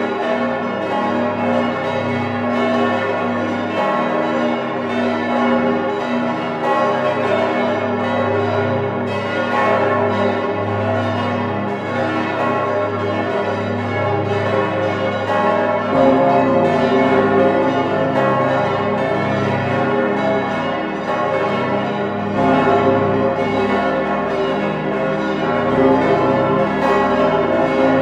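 Many large bronze church bells, the main peal of St. Stephen's Cathedral's south tower, swinging and ringing together, heard close up from inside the bell chamber. Their strokes overlap into one continuous, dense clang of many pitches. The deepest notes swell about halfway through.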